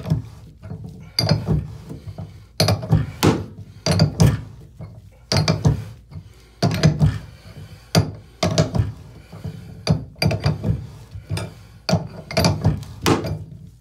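Steel open-end wrench clunking repeatedly against a plastic drain removal tool and the tub as it is reseated and turned, often two knocks close together about every second. The old drain flange is rusted in and is being unscrewed a little at a time.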